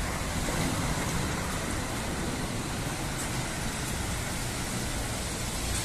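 Steady road traffic noise: an even hiss with a low rumble underneath.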